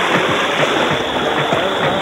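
Shallow river water rushing steadily over a stony riffle, with music playing over it.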